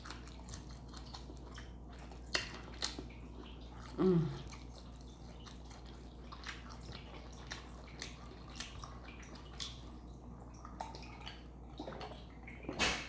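Close-miked eating of a seafood boil: wet chewing and mouth clicks scattered throughout. About four seconds in there is a short low vocal sound that falls in pitch, and near the end a louder throaty sound.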